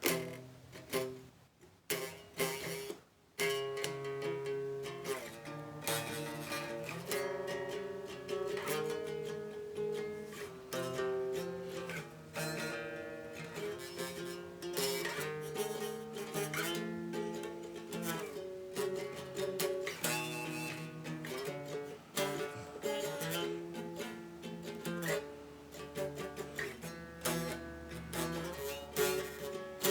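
Guitar strumming chords. A few separate strums come first, then steady strumming from about three and a half seconds in, with the chords changing every second or two.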